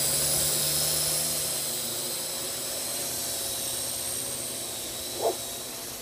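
Parrot AR.Drone quadcopter flying, fitted with new high-speed gears: a steady high whine from its geared motors and propellers that grows gradually fainter as it moves away. A brief squeak about five seconds in.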